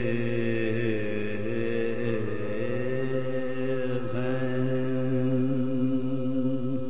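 A male voice chanting Urdu elegiac verse (qat'aat) in soz style, drawing out long held notes with slow glides in pitch.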